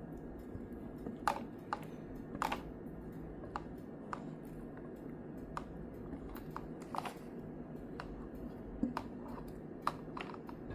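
Light, irregular clicks and scrapes of a utensil against a pan as thick sausage gravy is poured out into a bowl, over a steady low hum.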